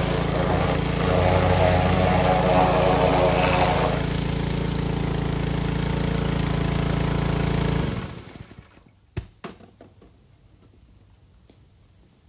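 Pressure washer running with its small engine and a hissing water spray, the spray easing about four seconds in; about eight seconds in the whole sound dies away, followed by a few sharp clicks.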